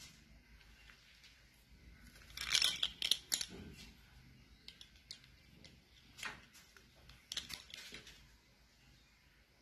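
Scattered short scratchy rustles and clicks, loudest about two and a half to three and a half seconds in: a cat shifting and rubbing against a terry towel.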